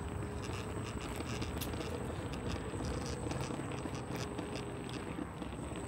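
Steady low rumble of night-time city street noise, with faint ticks of footsteps from someone walking.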